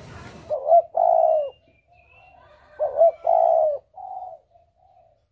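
A dove cooing: two phrases, each a short coo followed by a longer one, about two seconds apart, with softer coos trailing off near the end. A small bird chirps faintly in between.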